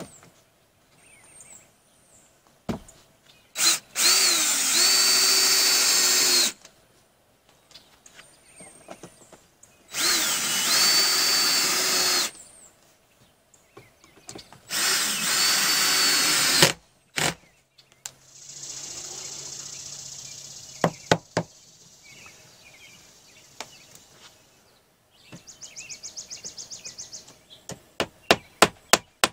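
DeWalt cordless drill driving screws into a composite trim board: three runs of two to three seconds each, the motor spinning up with a rising whine and then holding steady. Near the end, a hammer taps quickly several times, knocking a decorative bracket back into place.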